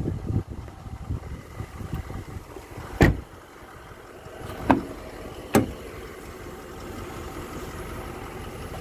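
A Range Rover Sport door shut with a single heavy thud about three seconds in, then two sharp clicks a second and a half and two and a half seconds later as the front door's handle and latch are pulled open. Low rumbling handling and wind noise on the microphone at the start.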